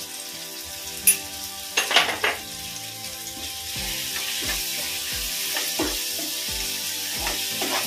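Onion, tomato and spices sizzling as they fry in ghee in a non-stick pan, with a spatula stirring and scraping through them. A sharp click and a few knocks come in the first two seconds or so.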